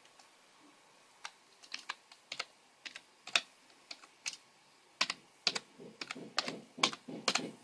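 Keystrokes on a computer keyboard: a few scattered clicks, then quicker typing from about five seconds in.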